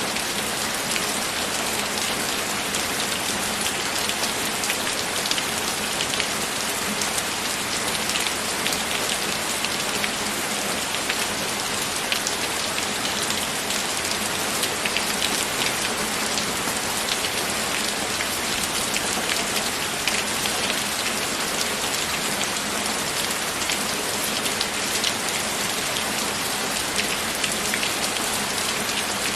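Steady rain falling: an even hiss of many drops, with fine ticks of individual drops scattered through it.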